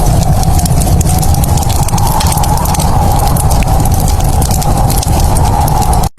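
Fireplace crackling: a dense run of small sharp pops and snaps over a steady rumble and hiss, cutting out for a split second near the end.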